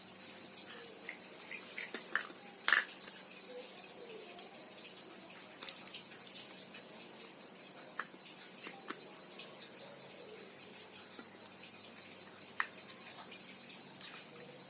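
Scattered small clicks and taps of hard plastic and metal parts being handled as a car seatbelt retractor is put back together, the sharpest click a little under three seconds in, with a faint steady hum beneath.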